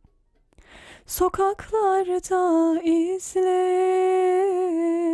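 An unaccompanied female voice singing a Turkish song through a Warm Audio WA76 compressor. A short breath about a second in, then a sung phrase ending in a long note with vibrato.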